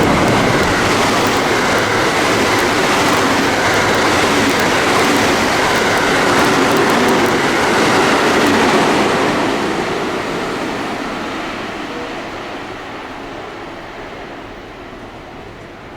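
Electric train running through a station platform at speed without stopping: a loud rush of wheels on rail and air, then fading steadily as it moves away from about nine seconds in.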